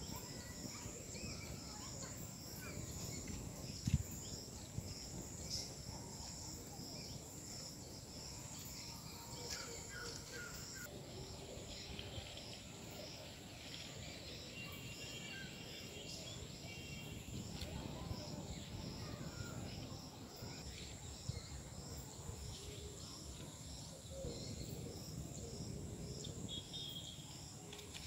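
Insects chirping in a steady, regular rhythm of short high pulses over a low background rumble, with a few faint high calls midway.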